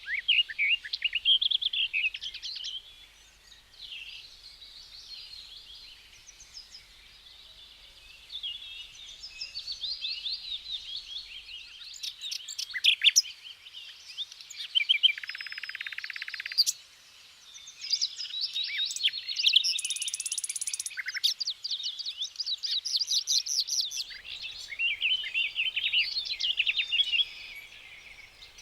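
Several songbirds singing and calling at once, a dense mix of quick chirps and warbling phrases. A buzzy trill comes in about halfway, and a brief high, hissing trill follows a few seconds later.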